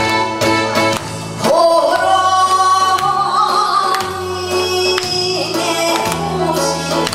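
A male singer sings a Korean trot song over an amplified backing track. The voice comes in about a second and a half in on a long, wavering held note.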